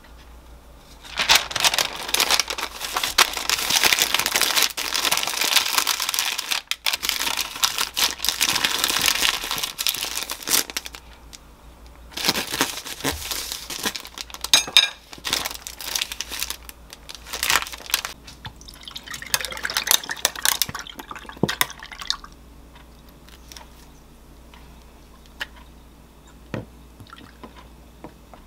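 Baking paper crinkling and crackling as a sandwich is wrapped tightly in it. Then, about halfway through, a knife saws through the paper-wrapped sandwich, the paper crackling in short bursts, and it goes quiet in the last few seconds.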